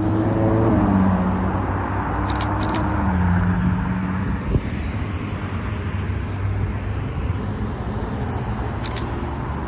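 Cars driving slowly past with their engines running. One engine's pitch drops twice, about a second in and again around three seconds in, over steady traffic and tyre noise.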